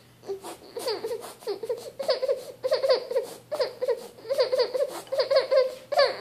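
Baby whining and whimpering in a rapid run of short, high, wavering cries, about three a second, fussing at the taste of a spoonful of food she dislikes.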